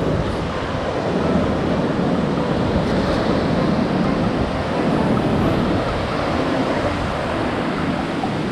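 Pacific Ocean waves breaking and washing up the beach in a steady rushing surge that swells about halfway through, with wind buffeting the microphone.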